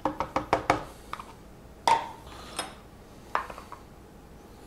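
Hard kitchen containers being handled. A quick run of sharp clicks and taps comes first, then a few single knocks.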